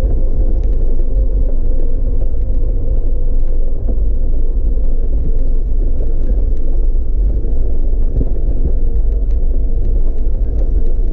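Jeep engine running steadily at low speed with a deep rumble of tyres rolling over a gravel track, with occasional light ticks.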